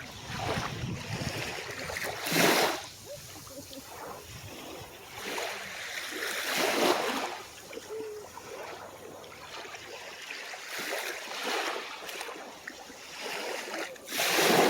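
Small, calm waves washing up on the shore: a steady hiss of water with separate washes that swell and fade, the biggest about two seconds in, about seven seconds in, and near the end.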